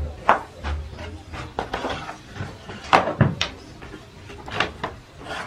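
Metal baking trays clanking and scraping against a brick oven's metal racks as they are slid in and out with a long-handled metal hook: a run of sharp knocks and scrapes, loudest about three seconds in.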